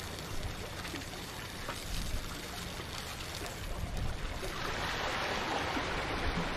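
Sea waves washing against the rocks of a jetty, a steady rush of surf that swells louder about two thirds of the way in.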